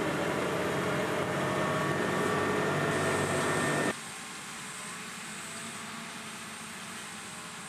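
Claas tractor engine running steadily under ploughing load, heard loud from inside the cab. About four seconds in it cuts to a quieter, steady sound of tractors working the field heard from outside, with a faint high whine.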